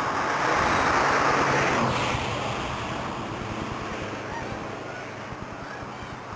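A road vehicle passing close by: its tyre and engine noise swells and fades over about two seconds, leaving a steady low hiss of traffic and wind.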